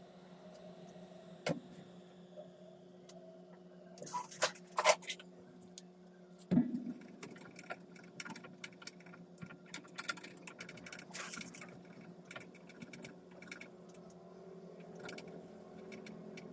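Small clicks, scrapes and taps of tools being handled on a TV mainboard, with a sharp knock about six and a half seconds in, over a steady low hum.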